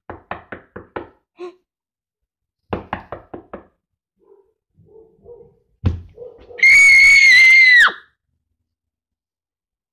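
Two quick runs of knocking, about five knocks each, a couple of seconds apart, then a single heavy thump. After it comes a loud, high-pitched scream held for just over a second.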